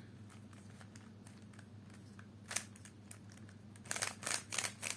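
Stickerless speed cube being turned by hand: light plastic clicks, a few scattered at first, then a quick run of turns near the end.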